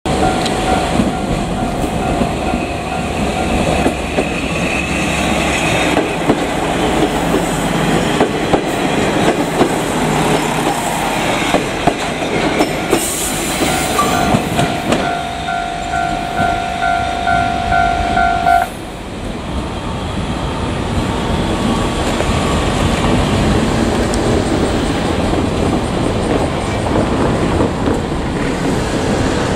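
A two-car JR Kyushu KiHa 47 diesel railcar train passing a level crossing, its engines and wheels running with rumble and clatter over the rails. The crossing's alarm bell rings in a pulsing two-tone pattern and stops abruptly about 18 to 19 seconds in, when the crossing clears. There is a brief high hiss about 13 seconds in.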